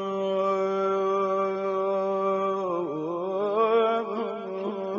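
A male voice singing a Persian Shia devotional elegy (maddahi), holding one long steady note. About three seconds in it breaks into a quick ornamented run of wavering turns, then settles back onto the held note.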